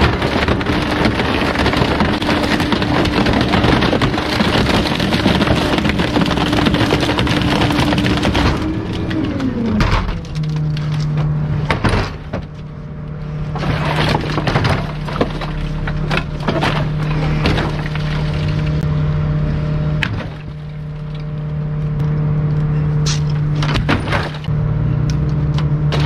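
Bulk waste truck running under load with a loud rushing noise and a steady drone that glides down in pitch about nine seconds in to a lower steady hum. From then on, repeated sharp cracks and snaps of bulky items breaking as the load is crushed.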